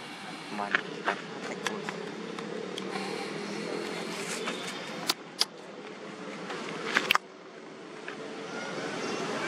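A steady low hum like a motor running, with a few sharp clicks over it; the sound drops abruptly about seven seconds in.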